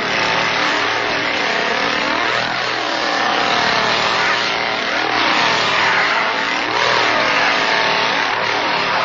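Two-stroke chainsaw engine revving up and down over and over, its pitch rising and falling about once a second.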